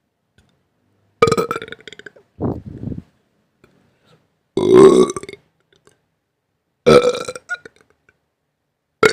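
A person burping: a series of separate loud burps with short silences between them, the loudest about halfway through, and another starting right at the end.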